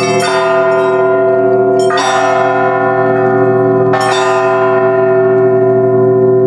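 Church bells rung in three strokes about two seconds apart, each stroke ringing on in a rich cluster of tones that overlaps the next.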